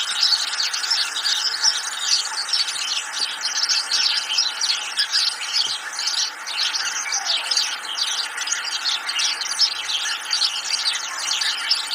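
A steady, dense chorus of high chirping, as from many small birds singing at once.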